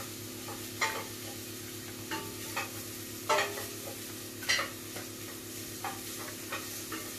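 Chopped onion frying in oil in a pan, a steady sizzle, with repeated sharp clinks of utensils and dishes scattered through it. The loudest clinks come about three and four and a half seconds in.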